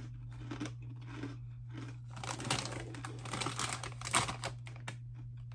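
Plastic-film snack bag of Flamin' Hot Cheetos Pretzels crinkling as a hand reaches in for a piece, starting about two seconds in and lasting about three seconds.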